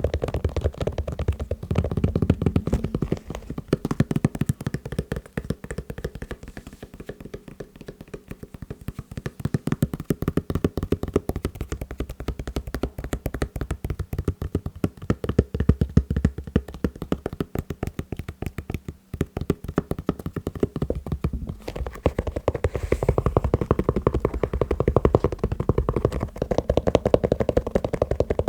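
Fast, continuous tapping on sneakers, many taps a second, dull and low in tone.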